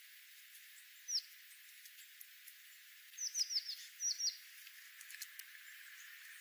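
Small songbird chirping: short, high calls that sweep downward, one single chirp, then a quick run of four and a pair close together about two seconds later, over a steady faint hiss.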